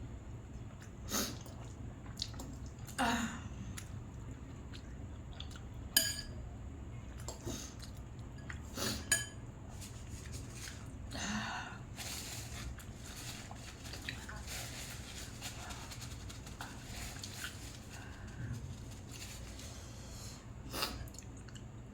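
A person eating fiery spicy instant noodles, sniffing and breathing sharply between mouthfuls as a reaction to the chili burn. A few short, sharp clicks stand out over a low steady hum.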